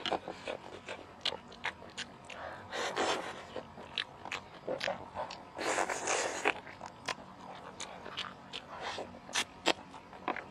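Close-miked eating sounds from a clip-on microphone: chewing, lip smacking and sucking meat off the bone and off the fingers, with many sharp mouth clicks and a couple of longer sucking noises about three and six seconds in.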